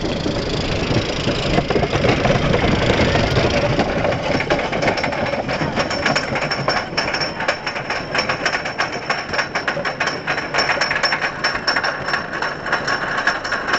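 Roller coaster train rolling out of the station with a low rumble, then climbing the lift hill, the chain lift clacking rapidly and steadily from a few seconds in.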